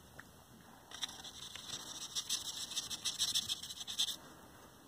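Small paintbrush loaded with tempera paint being scrubbed back and forth across a paper plate: a quick, dry scratching of bristles on paper, starting about a second in and stopping near the end.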